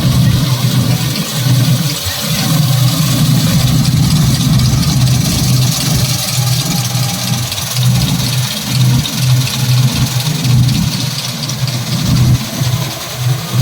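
An engine running at a steady speed, a low uneven throb with a steady hiss above it.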